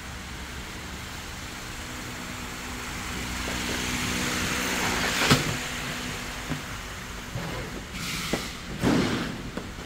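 Workshop background noise with a low hum that swells and fades, a single sharp knock about five seconds in, and a few lighter knocks near the end.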